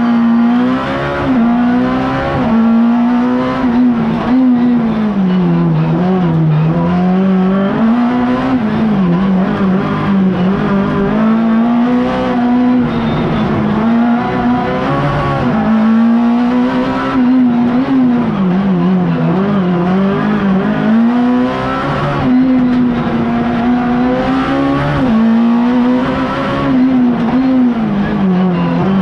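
Race-prepared Peugeot 106 engine at high revs, heard from inside the cabin. The engine note climbs and drops again and again as the car accelerates, lifts off and changes gear between the slalom gates.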